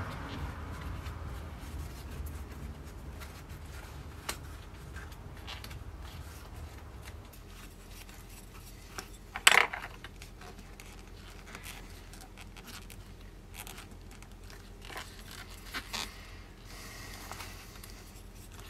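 Thread being pulled through stitch holes in a leather scabbard cover during hand-stitching: scattered scratchy rasps and small ticks, with one louder, short rasp about halfway through.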